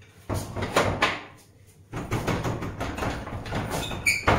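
Wooden door banging and rattling in its frame as it is knocked on hard, in two long bouts of rapid blows, with a short high squeak near the end.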